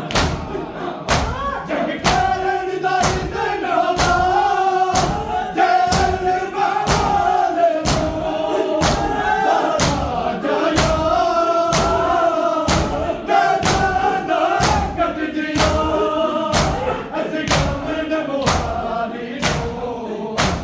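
Men's voices chanting a Punjabi noha together, over steady chest-beating (matam) thumps a little more than once a second.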